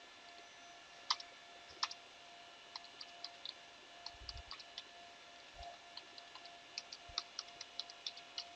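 Computer keyboard keys clicking as text is typed: two sharper keystrokes about a second in, then scattered taps that pick up into a quicker run of typing near the end.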